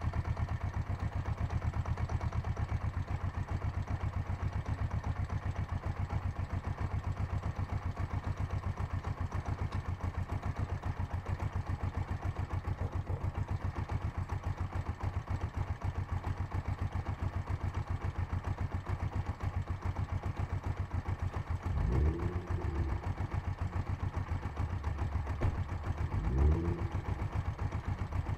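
Kawasaki GPZ500 parallel-twin engine idling steadily, blipped briefly twice in the last few seconds. The owner hears a knock from the gearbox and is asking what causes it.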